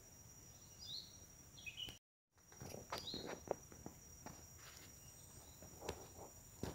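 Steady high-pitched insect chorus of two even tones, with a few short chirps and scattered faint clicks and rustles. The audio drops out to silence for a moment about two seconds in.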